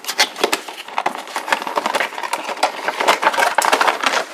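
Cardboard window box being opened by hand and its clear plastic blister tray slid out: a dense, continuous run of crinkling, scraping and small taps.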